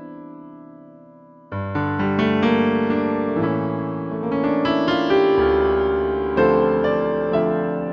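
Yamaha PSR-EW410 portable keyboard playing a piano-type voice: a held chord fades away, then about one and a half seconds in new chords with a bass line are struck and a melody is played over them.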